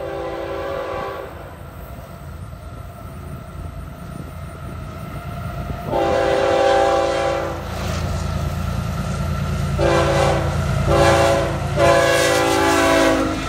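Diesel freight locomotive air horn sounding a chord in five blasts as the train approaches: one at the start, a longer one about six seconds in, then three in quick succession near the end, the last the longest. Under it, the rumble of the leading GE ES44C4 locomotive and train grows louder as they near.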